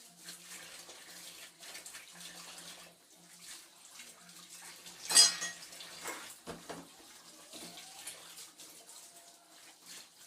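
Tap water running into a kitchen sink while dishes are washed by hand, with irregular splashing and knocking of utensils and one sharp, loud clatter of dishes about five seconds in.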